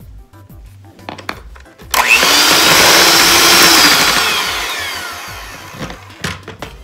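Electric hand mixer beating eggs into softened cream cheese: it starts abruptly about two seconds in, runs loud, then gradually fades over the last couple of seconds.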